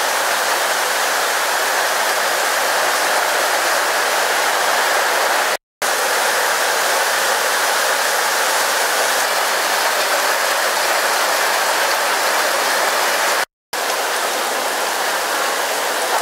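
Heavy rain pouring down in a steady, loud hiss. The sound drops out twice for a split second, about six seconds in and again near fourteen seconds.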